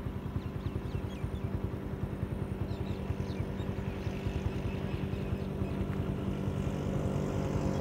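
An engine idling steadily nearby, its low hum beating with rapid, even firing pulses.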